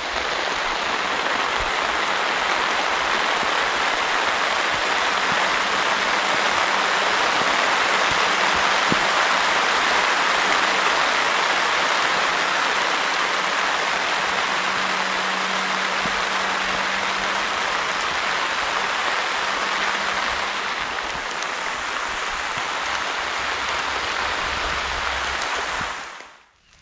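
Heavy rain falling steadily, a dense even hiss that cuts off suddenly near the end.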